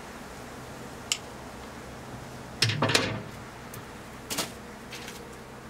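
Knocks and clunks on metal as a person moves about and sits down on the steel casing of a large industrial compressor. There is a sharp click about a second in, a loud cluster of knocks about halfway through and another knock shortly after, over a steady hiss.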